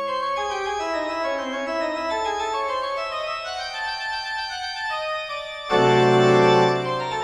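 Keyboard music with an organ-like sound: a falling run of held notes, then a loud low chord near the end that lasts about a second.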